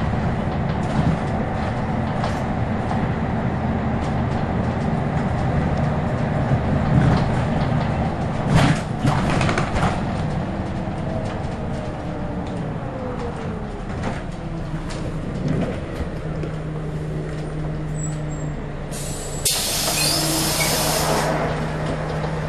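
Scania L113CRL bus's 11-litre six-cylinder diesel engine heard from inside the saloon, running under way with interior rattles, then a falling whine as the bus slows and settles to a steady idle. Near the end comes a loud hiss of compressed air lasting about two seconds.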